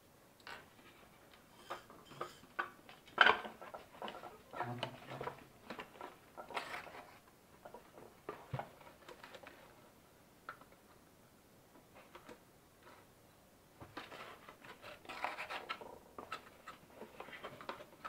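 Cardboard box being handled: scattered knocks, taps and short scraping rustles of cardboard, with the sharpest knock about three seconds in.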